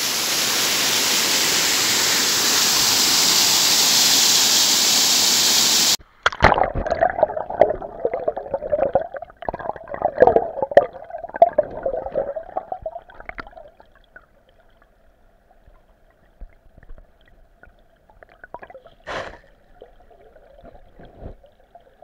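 Small stream cascade pouring over rock, a steady rushing of water. About six seconds in, the sound cuts abruptly to water heard underwater: muffled bubbling and knocking that fades to a faint hum, with one sharp knock near the end.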